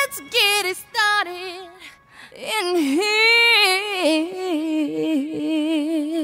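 Music: a single female voice sings an unaccompanied melody of sliding notes with strong vibrato, breaking off briefly about two seconds in, then holding a long wavering note, with no beat underneath.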